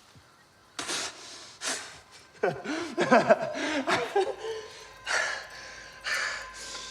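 A person breathing hard and gasping, with a cluster of short strained gasps and groans about halfway through.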